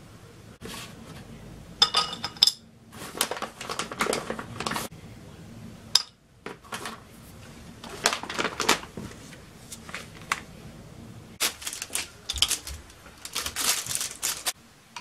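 Tea-bag sachets and chocolate wrappers crinkling and tearing, with sharp clicks and light clinks of chocolate pieces and dishes set down on a ceramic plate on a kitchen scale. The sounds come in irregular clusters, the loudest crinkling near the end.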